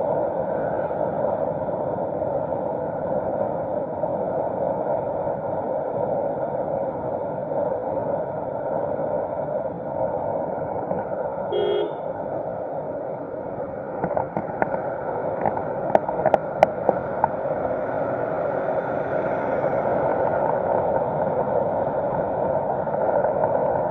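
Steady drone of a vehicle on the move, engine and road noise together. A short horn toot comes about halfway through, and a few sharp clicks follow a little later.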